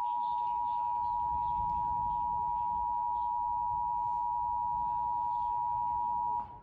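Emergency Alert System attention signal from a TV broadcast: the steady two-tone alarm, two close high pitches sounding together at a constant level, cutting off suddenly near the end. It signals that an emergency alert is about to be read out.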